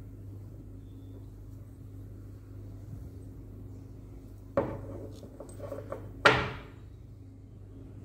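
A stone dental cast knocking against a wooden tabletop as it is handled: a sharp knock, a few small clicks, then a second, louder knock near the end, over a faint steady low hum.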